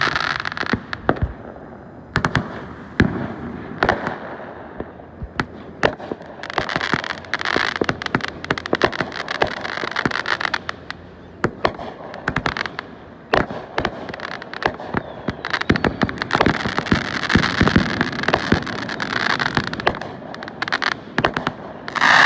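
Fireworks going off: an irregular string of sharp bangs and pops, with hissing and crackling between them.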